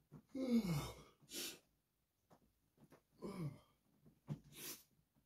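A man yawning twice as he stretches awake in bed: each yawn slides down in pitch and is followed by a short breath out.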